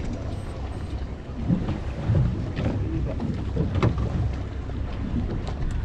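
Steady low rumble of a fishing boat at sea, with wind on the microphone. Scattered short knocks and clicks come from the rod and deck as a fish is reeled in and lifted aboard.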